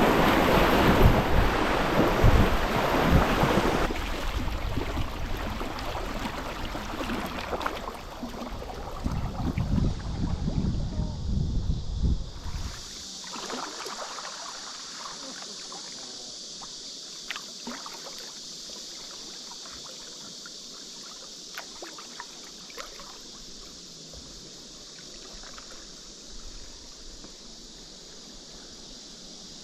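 Moving river water and wind buffeting the microphone from a kayak on the river, loud at first. About 13 seconds in the low rumble drops away, leaving a steady water hiss with a few light splashes.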